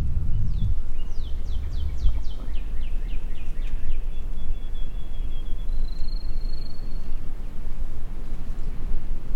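Low wind rumble on the microphone, with a songbird singing over it. The song is a run of about a dozen quick downslurred whistles, then two thin trills, the second higher than the first.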